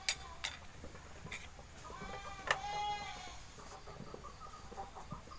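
A few light metal clicks and taps as a motorcycle disc brake caliper is worked with a steel rod and wrench to press back its stuck piston. One long farm-animal call sounds in the middle.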